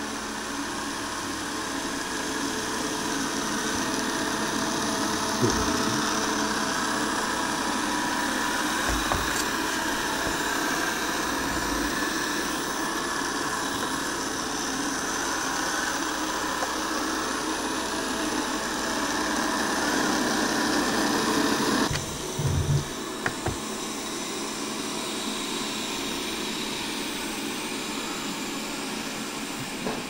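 Xiaomi Mi Robot Vacuum Mop Pro robot vacuum running, its suction fan and brushes making a steady whir with a few low thumps. The sound drops abruptly about two-thirds of the way through.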